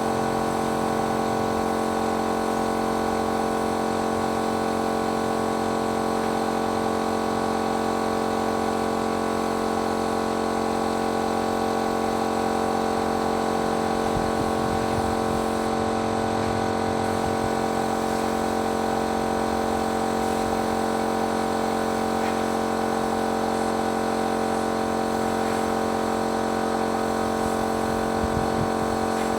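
Motor of a paint-spraying machine running steadily, a constant even hum that does not change in pitch or level.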